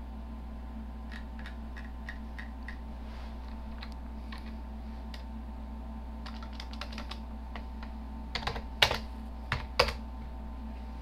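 Typing on a computer keyboard: irregular keystrokes, with a few louder key presses near the end, over a steady low hum.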